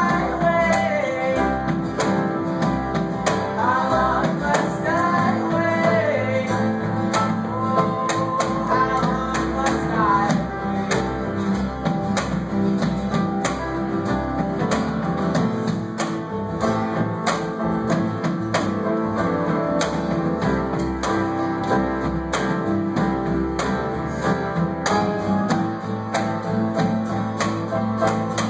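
A small acoustic band playing live: strummed acoustic guitar and upright bass, with singing for roughly the first ten seconds, after which the instruments carry on without vocals.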